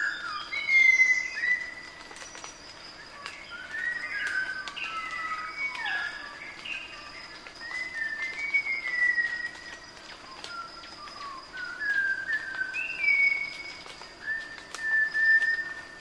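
Several songbirds singing, with clear whistled notes, many of them gliding downward and overlapping one another, over a steady thin high tone.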